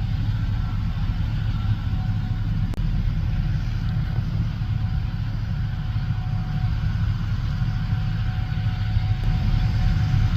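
Large farm machine's diesel engine running steadily under harvest work, a deep even drone with a faint steady whine above it.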